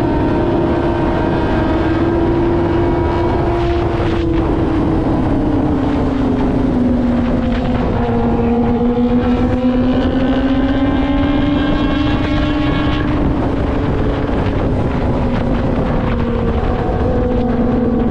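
Kawasaki ZX-25R's 250 cc inline-four engine running at high revs through an R9 aftermarket exhaust while riding. Its pitch drops about four seconds in as the bike slows, then holds steady with small rises and falls.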